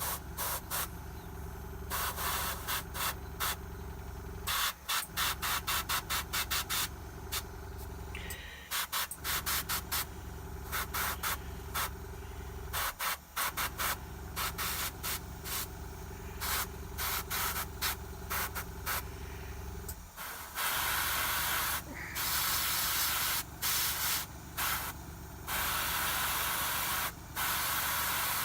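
An airbrush hissing in short, repeated spurts of air and paint, with the bursts growing longer near the end. A steady motor hum runs underneath and stops briefly a few times.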